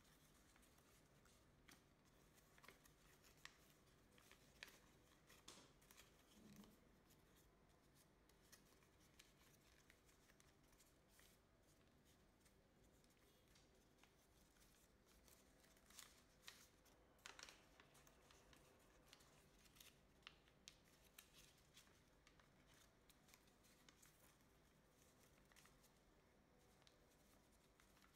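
Faint, scattered crinkles and rustles of a sheet of colour paper being folded and creased by hand, with busier stretches about six seconds in and again around seventeen seconds.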